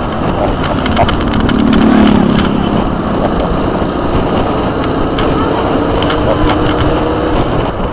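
Motorcycle engine running while riding, mixed with wind and road noise on the microphone. The engine note swells to its loudest about two seconds in, then settles to a steadier drone. Scattered sharp clicks run through it.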